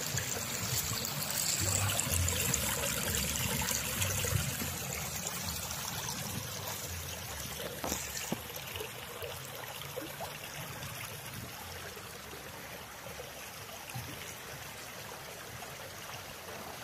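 Shallow stream of water running and trickling over rocks and gravel in a wadi, overflow water from Shawka Dam. It is a steady rush that gradually grows softer over the second half.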